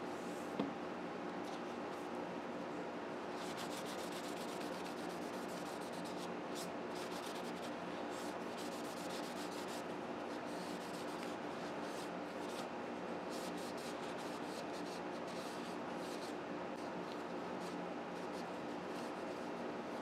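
Paper towel rubbing and wiping over a pocket knife's handle scales in a run of quick strokes, over a steady background hum. A single sharp tap comes about half a second in.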